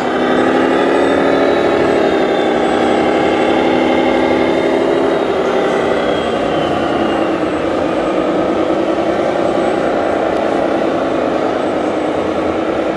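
Engine sound of a 1:8 scale RC heavy-haulage truck, running steadily with a constant pitched drone that eases slightly about five seconds in.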